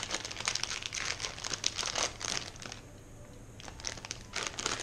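Plastic crisp packet crinkling and crackling as it is handled and pulled open by hand, with a short lull about three seconds in.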